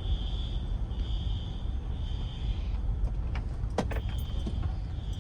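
Fire alarm horn sounding a high tone in three long pulses, stopping for a moment, then coming back on near the end. The speaker takes this on-and-off pattern for someone trying to reset it. A steady low rumble runs underneath.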